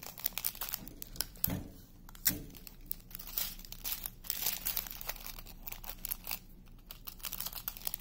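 Small plastic bags of diamond painting drills crinkling and rustling as they are handled one by one, with a couple of soft knocks about one and a half and two seconds in.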